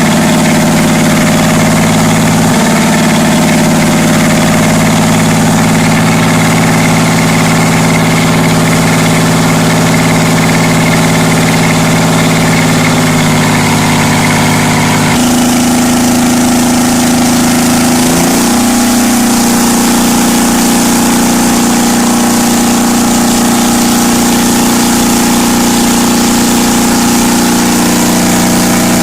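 An engine running steadily and loudly with an even, humming tone. About halfway through its pitch steps abruptly to a new level, then glides briefly and settles into a steady run again.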